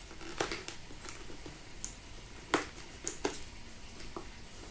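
A Shoei NXR full-face motorcycle helmet being handled and worked at inside: a handful of short sharp clicks and snaps with soft rustling, the loudest about two and a half seconds in.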